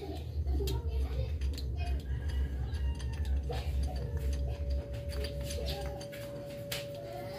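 Light clicks and clinks of a gold aluminium inverted motorcycle fork and its small parts being handled, over a low hum that stops near the end.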